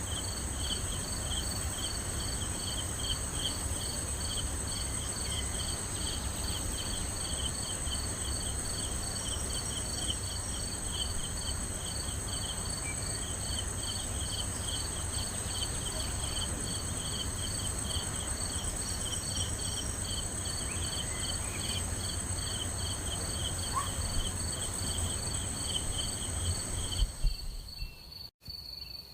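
Crickets and other night insects chirping in a steady chorus at several pitches at once, one of them a fast pulsing trill, over a low rumble. Near the end the highest insect note and the rumble cut off abruptly.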